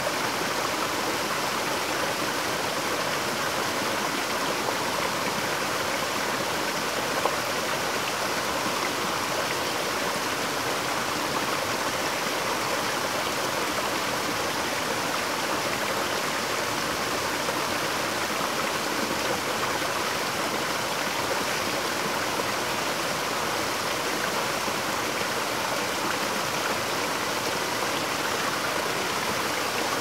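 Small waterfall falling down a rock face onto boulders: a steady, even rush of water.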